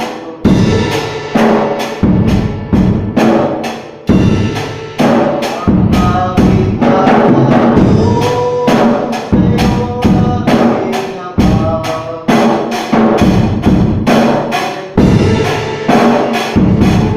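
Acoustic drum kit being played in a warm-up groove, with repeated strikes a few times a second and ringing tom tones in the middle, on a freshly repaired kit.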